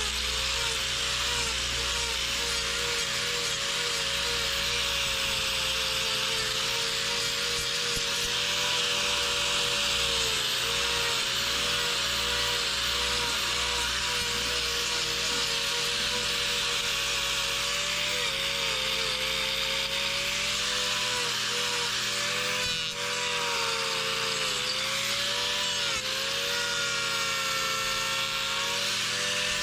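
Electric angle grinder running continuously as it trims a cow's hoof, a steady high whine with grinding hiss; its pitch sags briefly several times as the disc bites into the horn.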